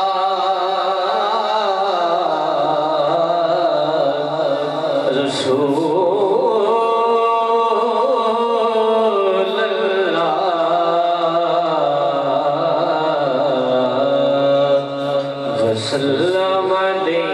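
A man's unaccompanied voice in melodic Islamic devotional recitation into a microphone. He draws out long phrases in a wavering, ornamented line, with short breath breaks about five seconds in and again near the end.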